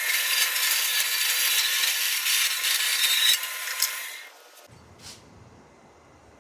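Bandsaw cutting through a metal shaft: a steady, noisy cutting sound that tails off and stops about four seconds in.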